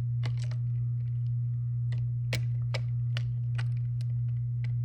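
Scattered light clicks and crackles, a few a second and irregular, over a steady low hum.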